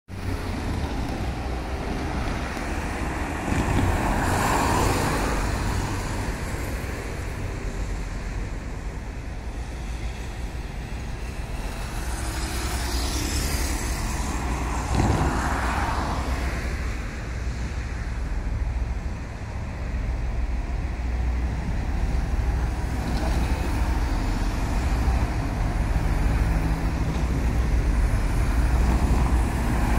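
Cars passing one at a time on a street, each rising and falling as it goes by, over a steady low rumble that grows slowly louder toward the end.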